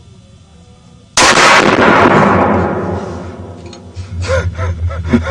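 A single loud gunshot about a second in, its echo fading away over the next two seconds. Voices start near the end.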